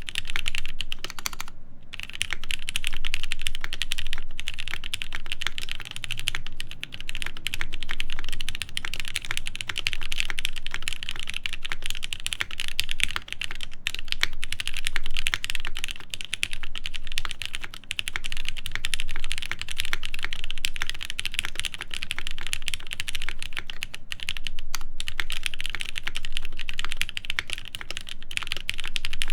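Continuous fast typing on a top-mount mechanical keyboard with lubed Gateron Ink switches, an aluminum half plate and GMK keycaps: dense keystroke clicks and clacks, with a short pause about a second and a half in and another near the end.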